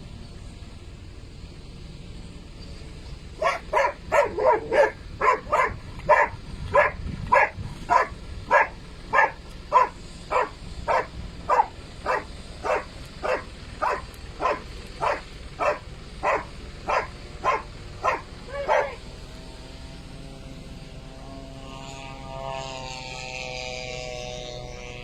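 Dog barking in a steady, even rhythm, about two barks a second for roughly fifteen seconds, slowing a little before it stops. A faint steady hum follows.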